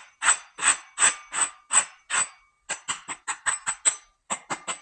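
A run of sharp knocks, about three a second at first, then quicker, around five a second, from about two and a half seconds in.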